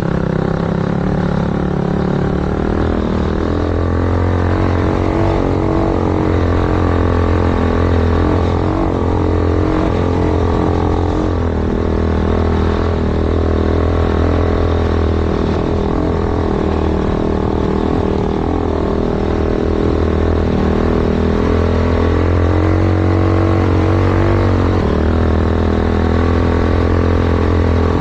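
Yamaha YFZ450 quad's single-cylinder four-stroke engine, bored out to 501cc, running loud through its sport exhaust, its pitch rising and falling with the throttle.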